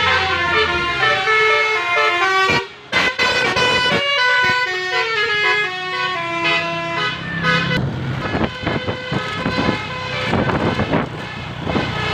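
A car's telolet basuri multi-tone horn playing a tune in quickly changing notes, with a short break about two and a half seconds in.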